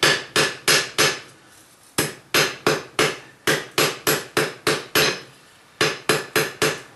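Blacksmith's hand hammer striking hot steel on an anvil, drawing out a taper on an old eye bolt: sharp ringing blows about three a second, in runs of three to six with short pauses between them, about nineteen in all.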